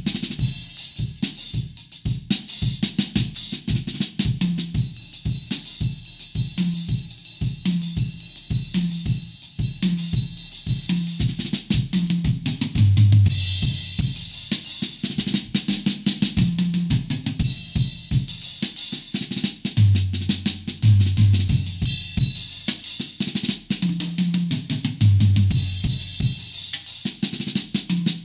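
Acoustic drum kit played in a steady, driving groove of bass drum, snare and cymbals. Several times there are louder passages of low drum hits with cymbal crashes.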